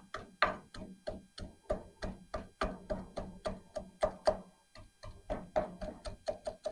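Quick, irregular knocks, about four or five a second, as a tool chips away at thick caked grease and mud on a car's underside.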